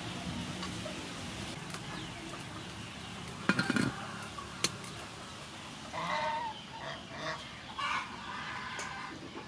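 A metal clank with a short ring about a third of the way in as the aluminium steamer lid goes onto the pot, followed by a smaller click. In the second half, chickens cluck several times.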